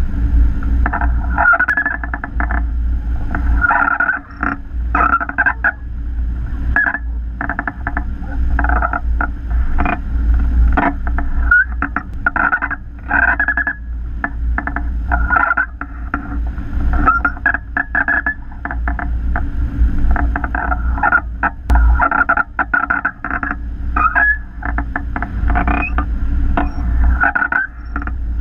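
Wind rushing over a wing-mounted camera's microphone in hang glider flight: a heavy, steady buffeting rumble, with irregular fluttering and brief whistles over it.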